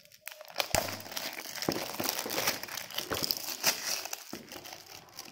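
Clear plastic wrapping being crumpled and crinkled between the hands, a dense run of crackles that starts just after the beginning and thins out near the end.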